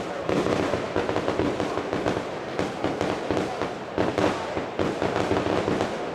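Noisy party audience: a dense crackle of clapping and impacts mixed with shouting voices, steady throughout.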